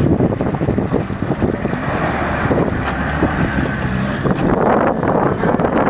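A 4x4 pickup truck's engine running as it drives over a rough, muddy off-road course, with wind buffeting the microphone.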